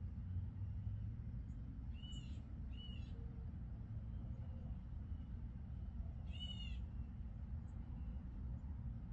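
An animal calling three times: two short calls close together about two seconds in, and a third about three seconds later. Each call rises and falls in pitch, over a steady low rumble.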